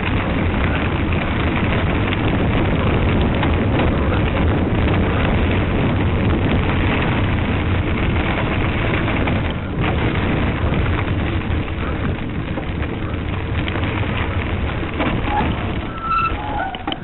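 Wind rushing over the microphone of a camera riding along on a cyclocross bike, a steady noisy rush with a heavy low rumble. It eases somewhat in the second half, and a few short high tones come through near the end.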